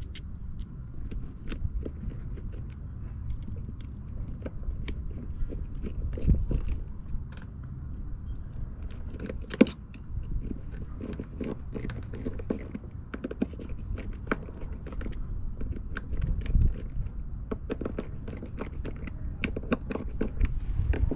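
A clamshell vent and its screws being handled and fitted against a boat's cabin side: irregular small clicks, taps and scrapes of the hardware being worked into place by hand.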